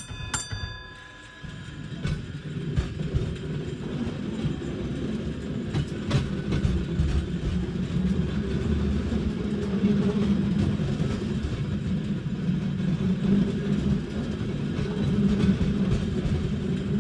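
A tram bell dings twice right at the start and its ring fades within about a second. Then comes the steady low rumble of a tramcar rolling along rails, with scattered clicks.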